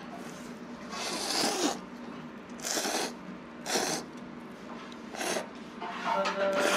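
A person slurping thin ramen noodles from a bowl, four airy slurps about a second apart.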